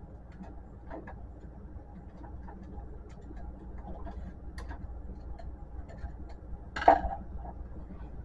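Light clicks and scrapes of a screwdriver working on the plastic and metal parts of an HP Photosmart C4480 printer's carriage assembly, with one louder clack about seven seconds in.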